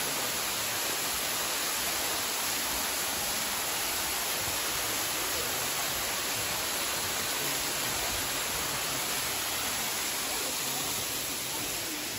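Yeddi Gozel waterfall, a tall narrow fall over rock, making a steady, even rush of falling water.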